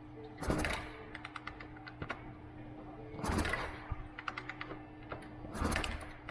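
Kickstart of a 1980 Honda CM200T pushed down three times, turning the engine over with the drain plug out to clear the last oil from the crankcase. Each stroke is a short rush followed by a run of light clicks.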